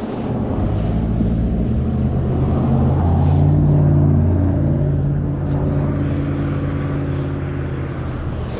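A motor vehicle passing: a low engine drone grows louder to a peak about four seconds in, then slowly fades.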